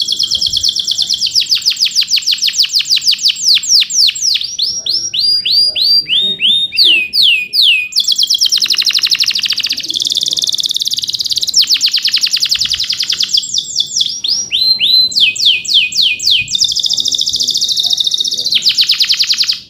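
Male canary in full song, singing loudly without a break: very fast rolling trills alternate with slower runs of separate sweeping 'cuit cuit' chirps, the phrase changing every second or two.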